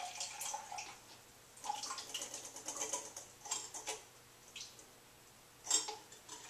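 Used fixer trickling from a film developing tank into a cup as the pour ends. Then the tank and cup clink and rattle as they are handled, with one sharp clack near the end.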